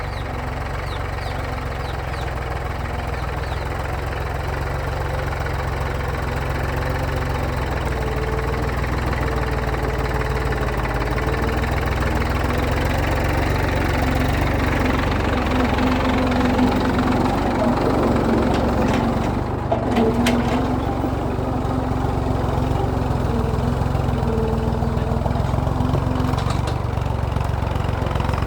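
Massey Ferguson tractor's diesel engine running steadily under load while pulling a plough. The sound grows gradually louder over the first half, with a brief dip and a couple of sharp clicks about two-thirds of the way through.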